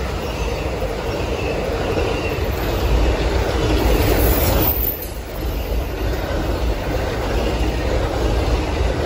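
A train running on the rails: a steady rumble of wheels with faint wheel squeal. The noise dips briefly about halfway through, then carries on.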